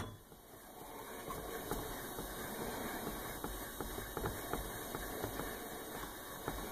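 Hand-turned drill press boring into a block of wood: the bit cutting gives a faint, steady rasp with light scattered ticks.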